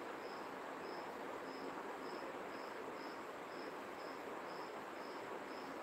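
Cricket chirping faintly: a short high chirp about twice a second, evenly spaced, over a steady low hiss.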